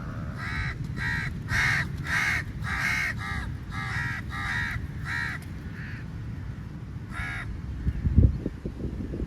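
Crow cawing: a quick run of about nine short caws, then a single caw a couple of seconds later. A steady low rumble runs underneath, and a loud low thump comes near the end.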